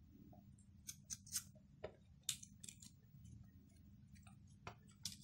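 Faint, scattered light ticks and rustles of fingers pressing the sealed edges of a stuffed paratha on a paper sheet, over a low steady hum.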